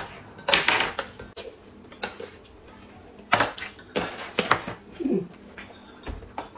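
Metal spoon clinking and scraping against a small glass cup and a tin while powder is scooped and stirred, as a handful of sharp clicks a second or so apart.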